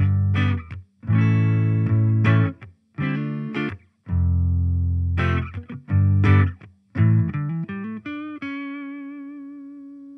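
Electric guitar through a Fender Champion 40 combo amp on its clean channel, neck pickup, no effects, playing a riff of ringing chords broken by short stops. The riff ends on one held note with vibrato that slowly fades.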